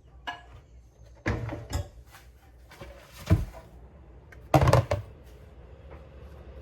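Kitchen handling noises: a series of knocks and thuds as containers are moved and set down on a counter, the sharpest about halfway through and a loud cluster soon after.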